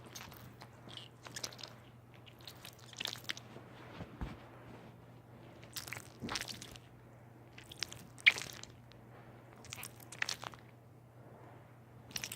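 Irregular squishy, crunching noises in short clusters, the loudest about eight seconds in.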